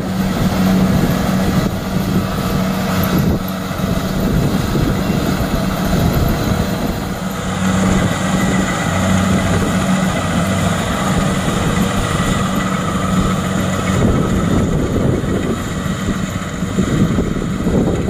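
Kubota DC-70 PLUS rice combine harvester's diesel engine running steadily under load, with the clatter and rush of its cutter and threshing drum working through the crop.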